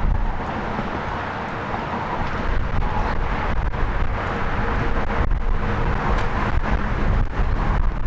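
Gusty wind buffeting the microphone, with a steady rumble of road traffic.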